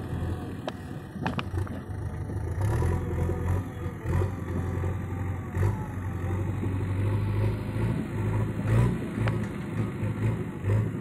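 Diesel engine of a JCB 3DX backhoe loader running under load as the machine drives and raises its loader bucket. The engine note swells and eases, with a few brief clicks along the way.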